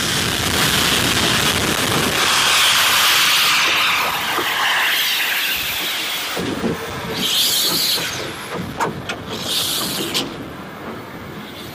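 Steam locomotive hissing steam while standing: a loud, steady hiss for about six seconds that then fades, followed by two shorter hisses about seven and ten seconds in.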